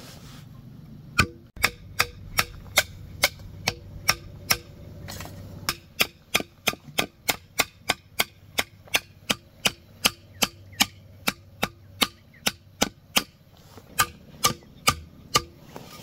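A hand tool striking a hard material in a steady series of sharp blows, about two or three a second, pausing briefly twice.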